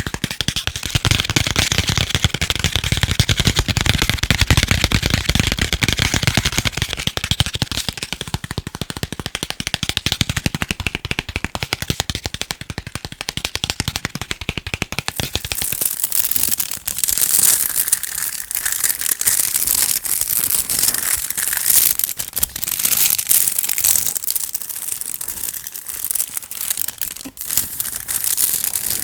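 Fast, rapid tapping on chocolate and its packaging, a dense stream of clicks. About halfway through, the fuller, thumpy taps give way to a thinner, high crinkling sound.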